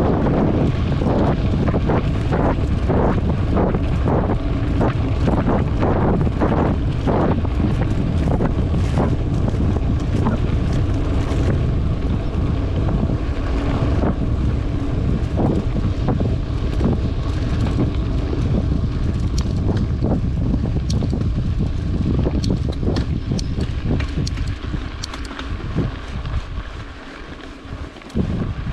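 Wind buffeting the microphone of a camera riding on a mountain bike moving along a dirt trail, with repeated knocks and rattles from the bike over bumps, thickest in the first several seconds. The noise dies down over the last few seconds.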